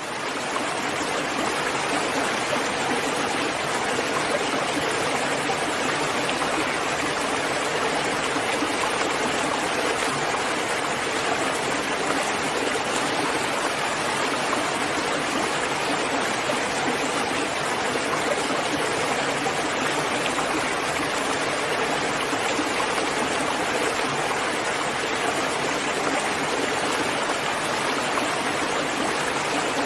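Steady heavy rain, a dense even hiss with no single drops or thunder standing out, swelling up over the first half second.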